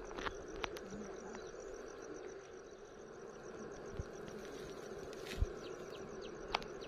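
Insects chirping in a steady, high, rapidly pulsing trill, with a few faint clicks and knocks.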